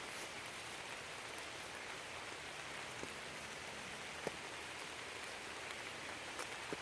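A steady hiss of falling or running water, with a few scattered sharp drips or ticks.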